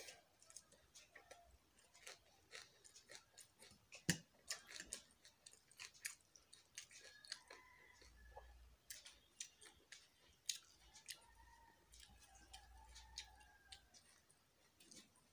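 Faint sounds of eating rice by hand: fingers mashing and squeezing rice against a metal plate, with chewing, giving a scatter of small soft clicks and one louder knock about four seconds in.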